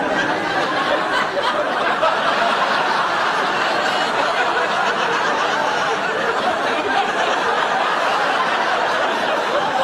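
Studio audience laughing, a loud, steady wash of laughter from many people.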